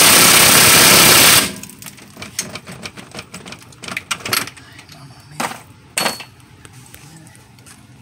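Cordless impact wrench running in one loud burst that stops about a second and a half in, loosening a nut on the front suspension arm. Scattered metallic clicks and knocks of tools and parts being handled follow.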